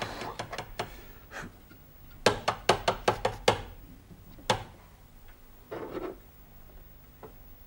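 Hard-boiled eggs being tapped against a hard surface to crack their shells for peeling: a quick run of sharp knocks about two seconds in, then a single knock a second later.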